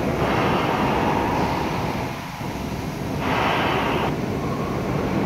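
Valve pressure-test bench running with a steady machine hum, and two bursts of hissing: one in the first two seconds, and a shorter one about three seconds in.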